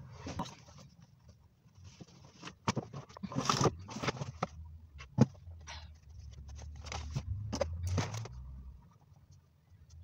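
Rummaging through a backpack and flipping through a notebook's pages: bursts of rustling, scrapes and sharp clicks, which die down near the end.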